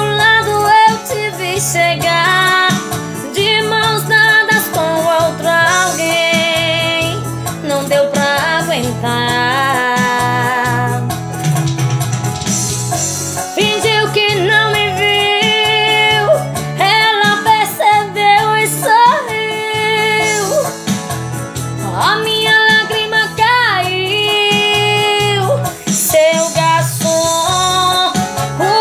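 A woman singing a song in Portuguese, holding long notes with vibrato, over instrumental accompaniment.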